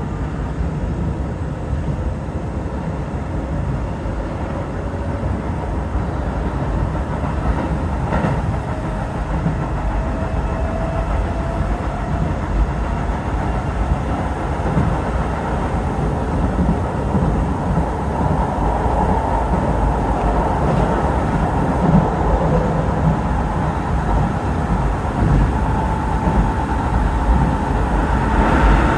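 Electric commuter train running, heard from inside the front car: a steady rumble of wheels on the rails, with a faint motor whine that rises in pitch over the first several seconds and holds a steady tone in the last few seconds.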